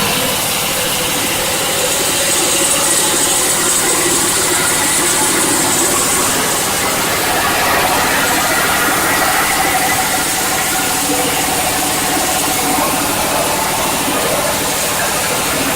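Coconut husk decorticating machine running steadily, a loud even mechanical noise with a low hum underneath.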